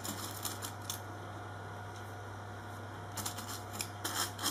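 Cotton fabric rustling and crinkling in the hands with small clicks as a folded dart is pinned, in short clusters in the first second and again near the end, over a steady low hum.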